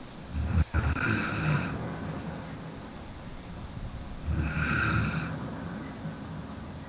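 A sleeping man snoring, picked up by his own microphone on a voice call: two snores about four seconds apart, each lasting a second or so.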